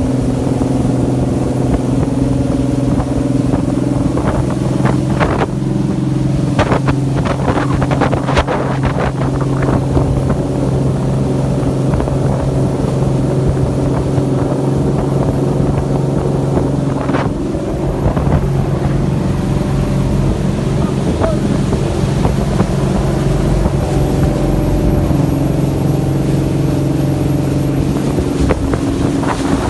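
A motor engine running steadily at an even speed. A cluster of knocks and rattles comes from about 4 to 10 seconds in, and another near 17 seconds.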